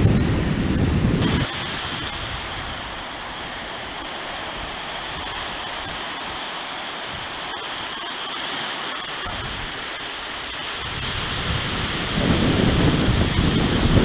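Sea waves washing onto a sandy shore as a steady hiss, with wind buffeting the microphone at the start and again near the end.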